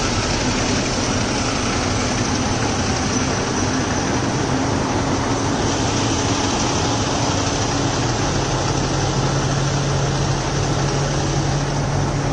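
A vehicle engine running steadily under a constant rushing noise, with a low hum that grows stronger about two thirds of the way through.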